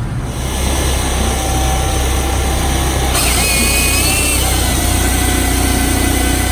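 Firewood processor running under its engine: a steady low drone, joined about three seconds in by a high hiss and a wavering whine.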